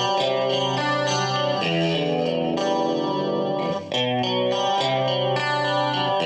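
Westone Spectrum GT electric guitar, 1985 Matsumoku build, played through an amplifier with a clean tone: ringing chords that change about once a second, with a brief break about four seconds in.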